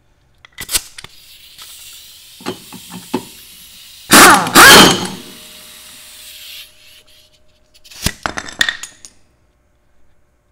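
Pneumatic impact wrench with a 1-1/8-inch socket hammering the mower-deck spindle's pulley nut loose in two short loud bursts about four seconds in, over a steady hiss. Metal clicks and clinks of the socket and nut are heard before the burst and again around eight seconds in.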